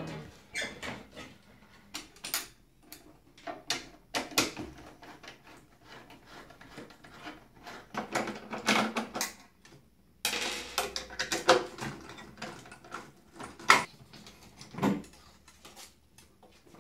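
Scattered clicks, knocks and metallic clatter of a CRT monitor chassis and hand tools being handled as the monitor assembly is unbolted and lifted out of its sheet-metal bezel, with denser rattling runs about eight and eleven seconds in.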